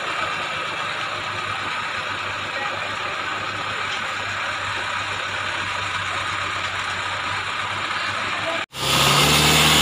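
Off-road 4x4's engine idling steadily. Near the end the sound cuts abruptly to a louder, deeper engine running.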